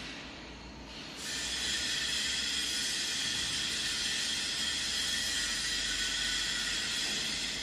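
A loud steady hiss of escaping gas, with a faint whistle in it, starts about a second in and eases off near the end.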